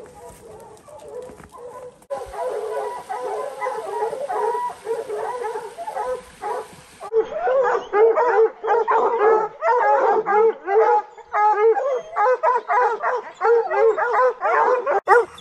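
Pack of lion hounds baying at a tree where they have a mountain lion treed: many overlapping barks and bawls. They are sparse at first and become a dense, loud chorus about seven seconds in.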